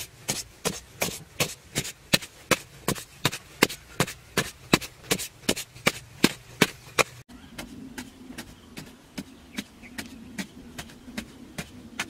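Hoe chopping into dry, crumbly soil in quick, evenly paced blows, about three a second. A little past halfway the blows become softer and a steady low hum comes in under them.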